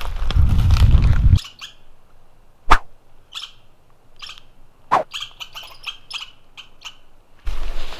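Footsteps on a forest trail, cutting off about a second and a half in. Then quiet woods with short high chirping calls, a quick run of chirps near the end, and two sharp clicks, the first of them the loudest sound.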